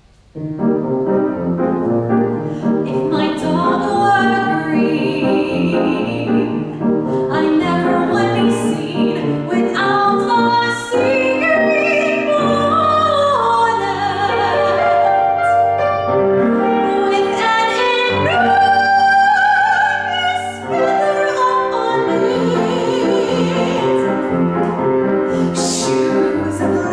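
Piano accompaniment playing an introduction, then a woman singing in a classical style, with vibrato on held notes, from about eleven seconds in.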